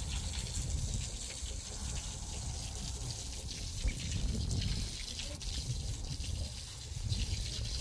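Water running from a hose and splashing onto a wet concrete floor, a steady hiss.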